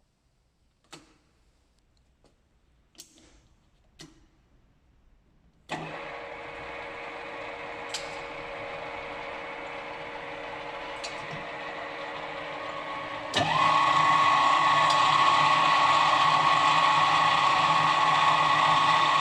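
Alzmetall AB35 S pillar drill: a few clicks, then its motor is switched on about six seconds in and runs steadily. About halfway through it steps up to much louder running with a steady whine that rises briefly and then holds.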